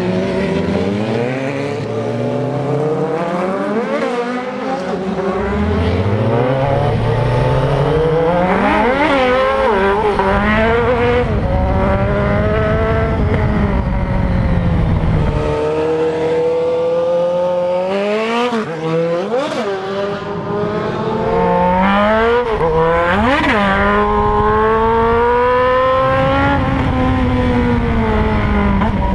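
Sport motorcycle engine accelerating through the gears, heard from the rider's seat. The pitch climbs with each pull and drops at every gear change, several times over.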